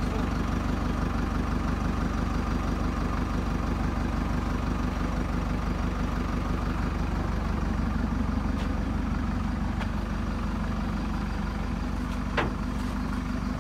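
A diesel engine idling steadily with an even low throb. A light knock sounds near the end.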